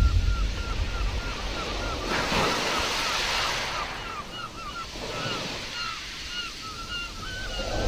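Nature-sounds recording of waves washing on a shore, swelling about two seconds in, with short high chirps repeating a few times a second over it.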